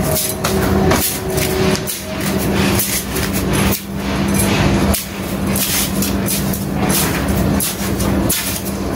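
Sand being scooped and scraped by hand, with irregular scrapes and knocks, over a steady low machine hum that stops near the end.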